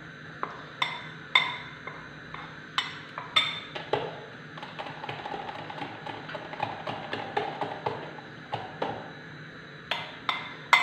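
Light taps and clinks of a spoon and a small ceramic bowl as cornstarch is tipped and knocked out into a plastic jug of beaten eggs and sugar. There is a quicker run of softer ticks in the middle.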